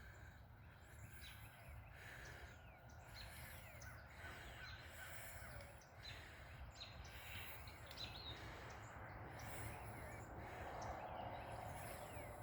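Faint chorus of wild birds calling, many short scattered chirps and calls overlapping, over a low steady background hum.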